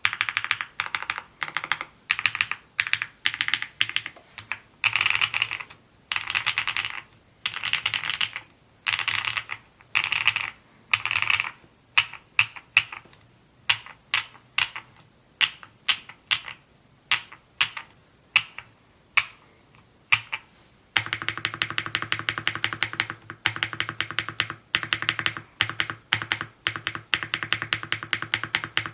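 Typing on an Evo80 mechanical keyboard: bursts of fast keystrokes, thinning to scattered single key presses around the middle, then a steady run of fast typing for the last third.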